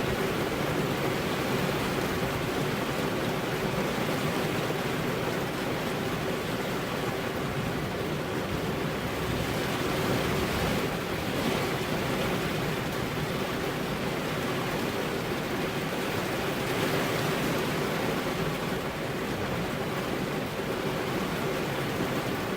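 Steady rain falling on a car's windows, an even wash of noise with no breaks or single loud hits.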